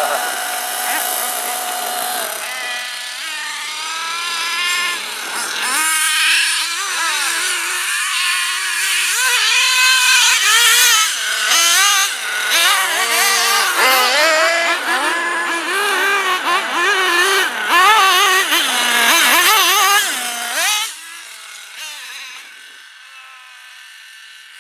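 Small nitro engine of a 1/8-scale RC car revving hard and easing off again and again, its pitch rising and falling quickly. The sound drops away to much quieter about 21 seconds in.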